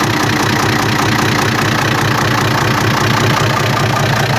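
FNM 180 truck's diesel engine idling steadily at a warm slow idle, with an even rhythmic beat. The owner counts this as its normal idle and judges the engine in fine shape.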